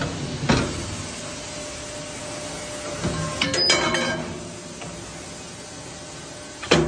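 Flat-bar bending machine for pipe clamps running with a steady hum, with a sharp metal clank about half a second in, a ringing metallic clatter of steel pieces around three to four seconds in, and another clank near the end.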